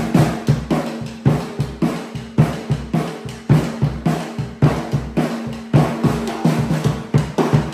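Bass drum struck in a steady beat, about two strong strokes a second with lighter hits between, over music with held low notes.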